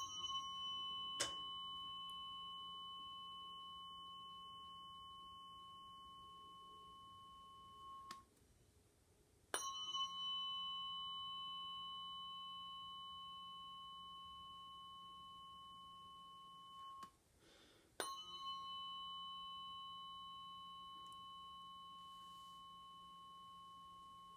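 Weighted tuning fork struck three times, each strike ringing with a clear steady tone that slowly fades and is stopped after about eight seconds before the next strike.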